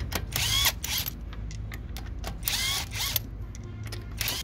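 Cordless impact wrench spinning wheel lug nuts off in three short bursts, its motor whine rising in pitch at the start of each burst, with small metallic clicks between them.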